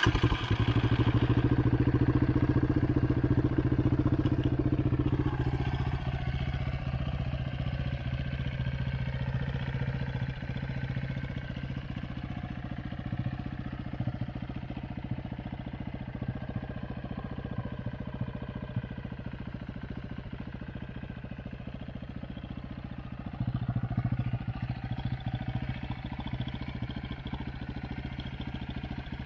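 Sport ATV engine idling just after being started, running louder and faster for the first five seconds or so before settling to a steady idle. Briefly louder again a little over 20 seconds in.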